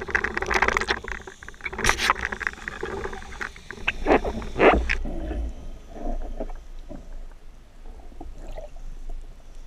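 Underwater water noise picked up by an action camera in its waterproof housing: a rushing, sloshing wash with several sharp knocks or splashes in the first half. After about five seconds it turns quieter and patchier.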